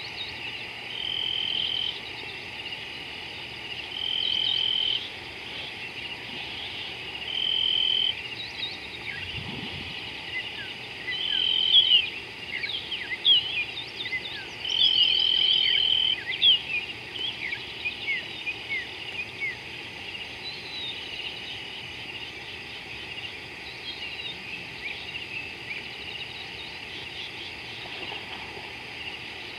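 Outdoor insect chorus: a steady high trill, with louder trilling bursts of about a second every few seconds in the first half. In the middle, a run of quick chirping bird calls joins in.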